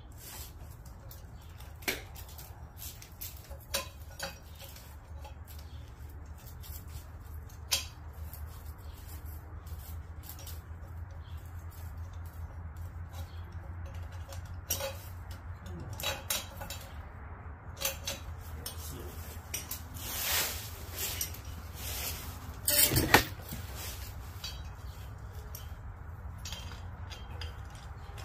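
Metal hand tools clinking and tapping as they work on a motorcycle engine's exhaust fittings: scattered light clicks, with a louder metallic clank near the end, over a steady low hum.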